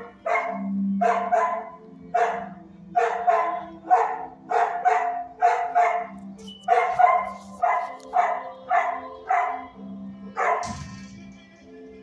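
Dog barking repeatedly in a steady run of about twenty barks, close to two a second, over a steady low hum.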